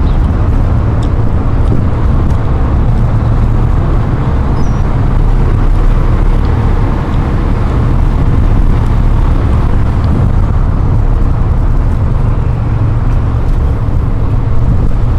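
A loud, steady low rumble on board a river ferry under way: the ferry's engines running, mixed with wind buffeting the microphone.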